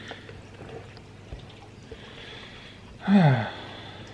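Steady low room hiss, broken about three seconds in by one short vocal sound from a man that falls in pitch.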